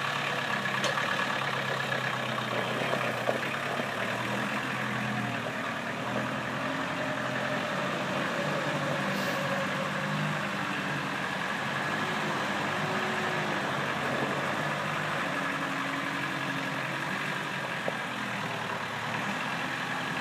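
Engine of a truck-mounted forklift running as the machine drives off across gravel, its pitch rising and falling with the throttle.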